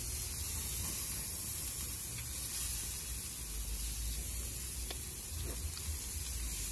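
Shrimp and meat skewers sizzling on a grill as sauce is brushed over them: a steady hiss with a low rumble underneath.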